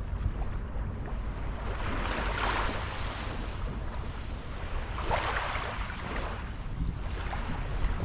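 Small sea waves washing in over a shell-and-pebble shoreline, a hissing wash about two seconds in and a stronger one after five seconds, over a steady low rumble of wind on the microphone.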